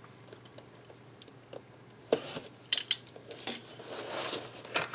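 Cardboard box being handled and opened by hand: a few sharp taps and clicks about two seconds in, then cardboard scraping and rubbing as the flap is worked open.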